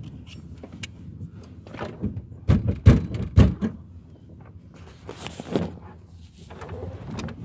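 Camera handling noise: a few heavy thumps and knocks close together about two and a half to three and a half seconds in, then rubbing and rustling as the camera is picked up.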